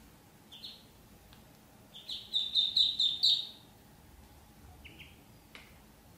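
Ducklings peeping: a quick run of about six high peeps a couple of seconds in, with single peeps before and after.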